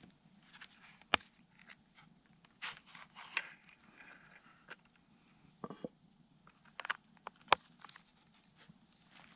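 A fixed-blade knife drawn out of a stitched leather sheath and set down on a wooden cutting board: rubbing and rustling of leather and hands, with a few sharp clicks and knocks, the loudest about a second in and again near the end.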